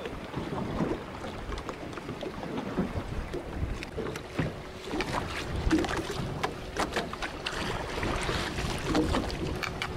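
Wind buffeting the microphone over water lapping and splashing at the surface, with short splashes as a hooked plaice is brought up and scooped into a landing net near the end.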